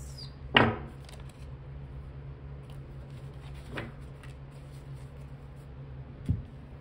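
Tarot cards being handled on a table: a few short card slaps and rustles, the first about half a second in and the loudest, a lighter one near the middle and a soft low thump near the end.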